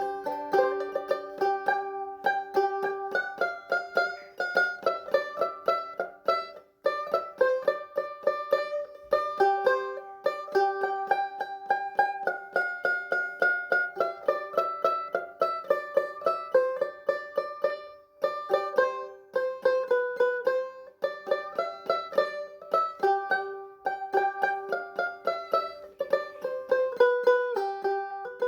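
Background music: a plucked string instrument playing a fast, evenly picked melody.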